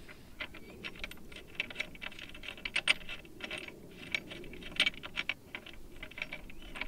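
Irregular light metallic clicks and ticks as a nut is spun by hand onto a bolt on a steel top-box mounting plate, several a second, with a few sharper clicks now and then.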